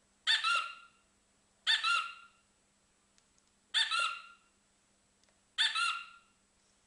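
Four short honking calls, each about half a second long, spaced a second and a half to two seconds apart.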